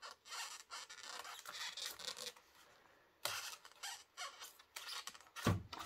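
A model railway coach being worked out of its tight white plastic-and-foam packaging insert: a series of short scraping and squeaking rubs, a pause in the middle, then more rubs and a thump near the end.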